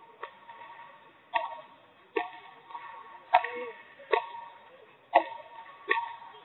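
Padel rally: a ball struck back and forth with padel rackets. The hits are a string of sharp pops, about one a second, each with a brief ring.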